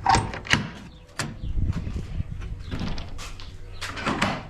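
Shed doors being opened: a few sharp knocks and clunks, then rattling and clattering as they are swung open, with a louder knock near the end.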